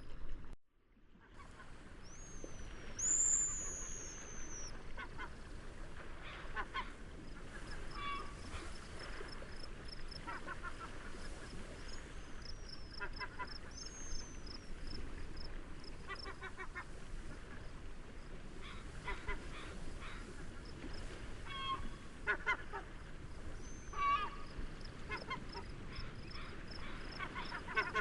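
Seaside nature ambience: a steady low rush of wind and waves, with gulls giving short honking calls every few seconds and high whistled bird calls now and then. A cricket chirps steadily through most of it. The sound drops out for a moment about half a second in.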